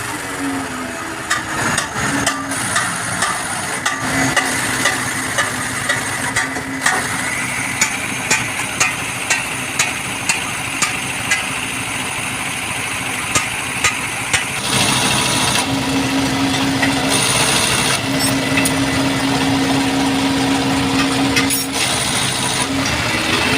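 Regular sharp taps, about three every two seconds, over a steady mechanical noise; about fifteen seconds in the noise grows louder and a steady low hum sets in.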